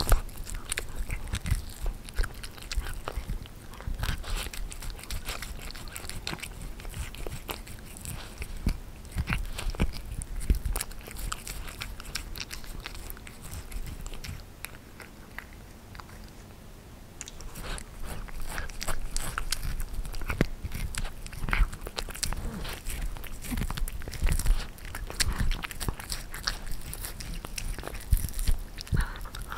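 Russian Blue cat gnawing and chewing a pork rib bone, with irregular crunches and clicks of teeth on bone and meat. The chewing eases off for a few seconds around the middle, then starts again.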